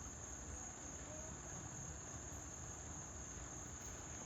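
Insects trilling in one steady, unbroken high-pitched drone.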